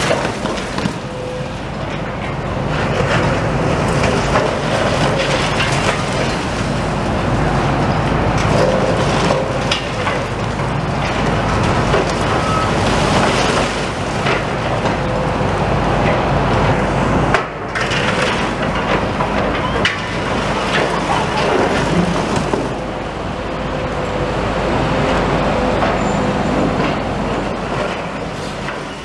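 Demolition machinery at work: a heavy excavator's engine running, with repeated cracks and crunches of concrete and debris being broken and pulled down.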